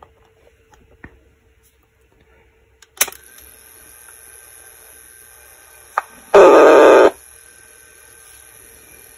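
Phonotrix 88 pocket tape recorder in playback: a click about three seconds in, then steady hiss with a faint whine from its speaker. Just after six seconds comes a short, very loud, distorted burst of the recorded sound.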